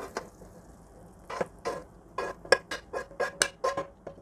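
Metal spoon scraping and clinking against a frying pan as cooked mushroom paste is scooped out: a run of about a dozen short scrapes and knocks, roughly three a second, some with a light metallic ring.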